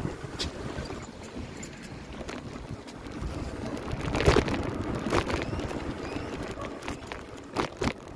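Wind buffeting the microphone of a moving bicycle, over the rumble of its tyres on the road, with a few sharp knocks and rattles, the loudest about four seconds in.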